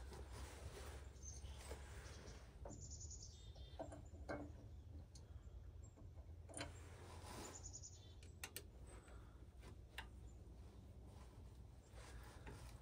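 Near silence: a faint steady low hum with scattered light clicks and a few brief high chirps.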